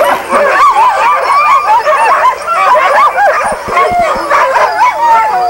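A pack of sled dogs yipping and whining in a dense, overlapping chorus of short rising-and-falling cries, with a few longer drawn-out whines near the end. It is the excited din of a sled team being hitched up for a run.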